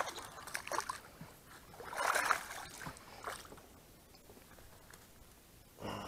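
Water splashing as a small hooked fish thrashes at the surface and is brought to hand beside the boat: a few short splashes, the loudest about two seconds in.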